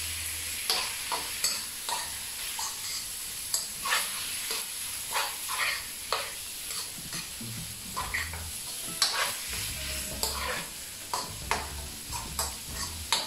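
Chicken livers with chopped onion and peppers sizzling in a frying pan while a metal spoon stirs them, scraping and clicking against the pan at irregular intervals. The livers are still fairly raw, early in the frying.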